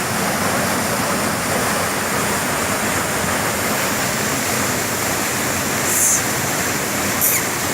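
Waterfall pouring steadily, a constant full rush of falling water. Two brief high-pitched sounds cut through it near the end.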